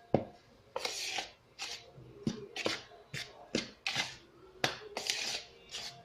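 Dry brioche ingredients (flour, sugar and yeast) being stirred together in a bowl, a quick series of short scraping strokes about twice a second.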